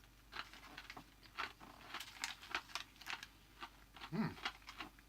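Close-up chewing of a crunchy savoury snack mix of sesame sticks, spicy chickpeas and cashews: irregular crisp crunches throughout, with a short low hum of the voice about four seconds in.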